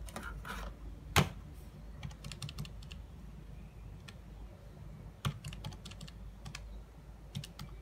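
Keys of a Casio scientific calculator being pressed in short runs of quick clicks, with one louder knock about a second in.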